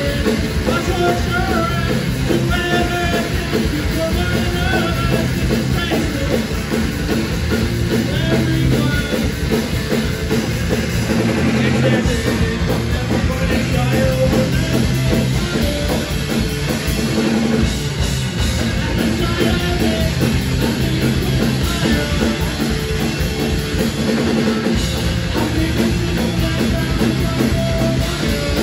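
Live rock band playing loud and without a break: electric guitar and a drum kit, with a voice singing over them.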